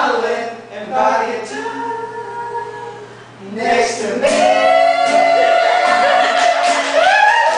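Teenage boys singing together as a small group, moving into one long held note from about four seconds in.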